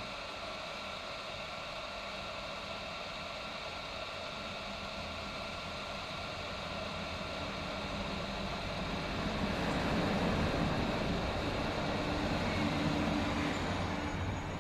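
Hot air rework station blowing steadily while heating the tablet's charging port to loosen its solder. The airflow hiss grows louder about eight seconds in.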